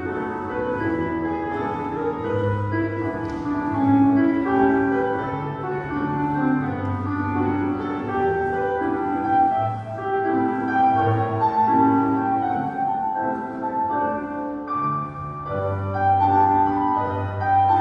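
Classical piano music playing continuously, a slow run of held notes and chords.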